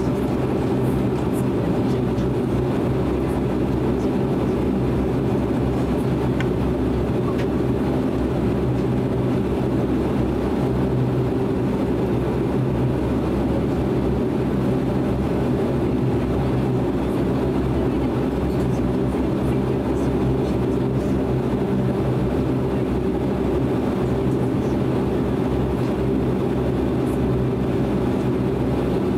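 Steady cabin drone of a DHC-8 Q400's Pratt & Whitney PW150A turboprops and propellers running at an even, low setting, heard from inside the cabin, a deep hum with several steady low tones and no change in power.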